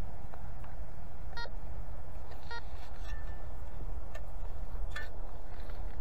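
Garrett ACE 200i metal detector giving short electronic target beeps, two clear ones about a second apart and fainter blips after, over a steady low rumble of wind on the microphone.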